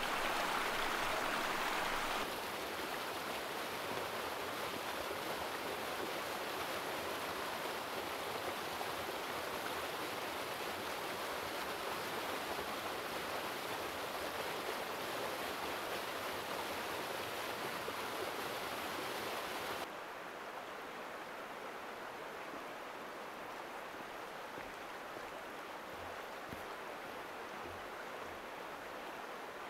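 Fast-flowing stream rushing over rocks, a steady roar of water. The level drops abruptly about two seconds in and again about twenty seconds in.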